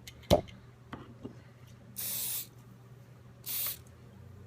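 Two short hissing bursts from an aerosol cleaning spray can, the first about half a second long and the second shorter, about a second and a half apart. They come after a single sharp knock of a part set down on the bench.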